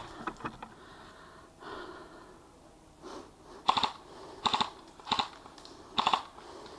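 Airsoft guns firing in short bursts, four quick clattering volleys less than a second apart, with a few faint clicks before them.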